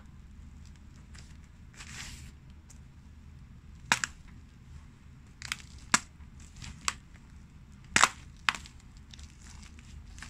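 Pumpkin rind and flesh cracking and crunching under hard-soled patent-leather loafers as they stamp on pumpkin halves. Several sharp cracks, the loudest about four and eight seconds in, with softer crunching between.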